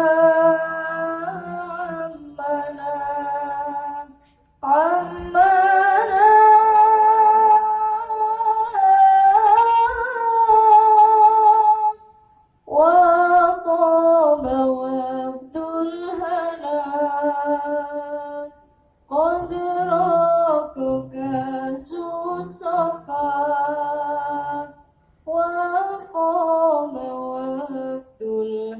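A female solo voice sings an Arabic devotional song without accompaniment. It moves in long, ornamented phrases with pitch turns on held notes, broken by short pauses for breath about every six seconds.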